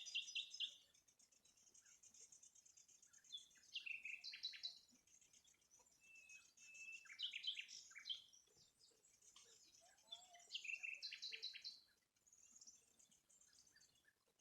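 A songbird singing in short, fast, high trilling phrases, about four of them a few seconds apart, faint against quiet background.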